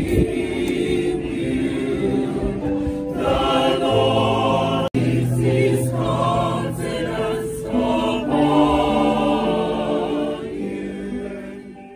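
A choir singing in harmony, several voices holding and changing notes, in a gospel style. There is a momentary break about five seconds in, and the singing fades out at the very end.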